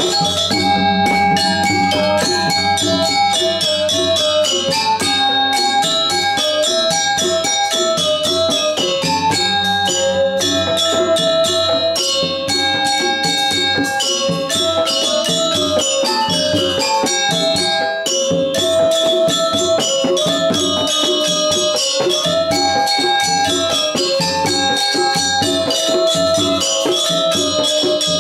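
A Balinese gamelan pelegongan playing: rows of bronze-keyed metallophones ringing out a dense, fast melody over two hand-beaten kendang drums.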